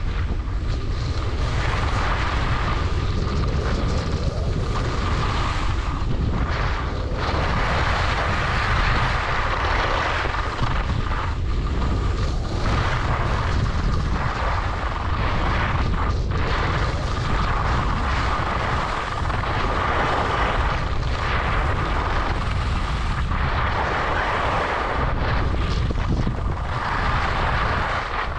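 Wind buffeting the microphone of a skier going downhill, over the hiss and scrape of skis on groomed packed snow. The scraping swells and fades every few seconds as the skier turns.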